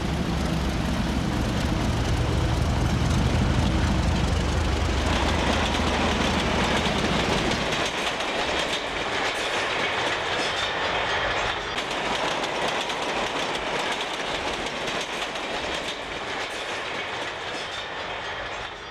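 A train passing close by. For the first several seconds there is a heavy low rumble, then steady wheel-on-rail noise as the cars go by, easing off near the end.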